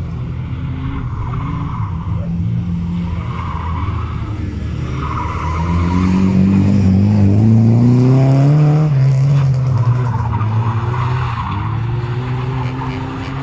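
Car engine revving hard through a slalom run, climbing in pitch and loudest in the middle before easing off, with tyres squealing as the car slides through the turns.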